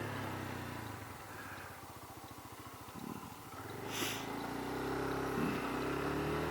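Road vehicle engine heard from on board, running at low revs with a pulsing throb, then pulling harder and rising in pitch over the last couple of seconds. A short hiss comes about four seconds in.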